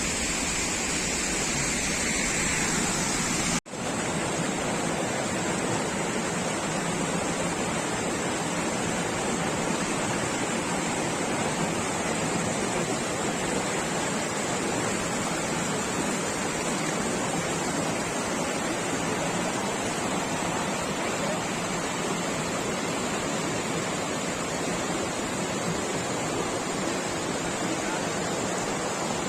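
A waterfall's falling water: a steady, even rush of noise, broken once by a brief gap about three and a half seconds in.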